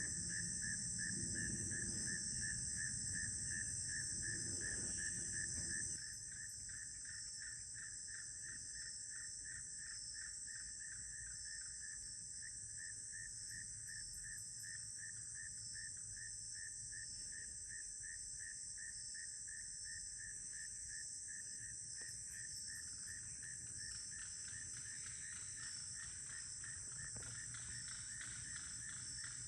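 Evening insect chorus: a steady high buzz with a rapidly pulsing, cricket-like trill beneath it. A low rumble under it stops suddenly about six seconds in.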